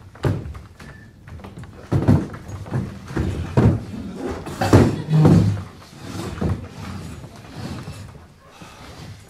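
Metal-framed stacking chairs knocking and scraping on a stage floor as people pull them into place and sit down: a run of irregular thuds and clatters, busiest in the middle.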